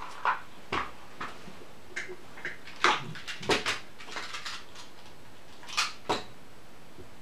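Plastic dice clicking and rattling as a hand rummages through a small box of dice, with a few sharper clacks as dice are picked out and set down on the table.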